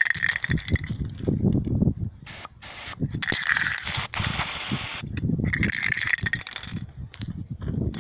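Homemade roller bean thresher working through dry runner-bean pods: a constant dry rattle and clicking of beans and brittle pods, swelling into louder crackling surges three times, at the start, about three seconds in and about five and a half seconds in.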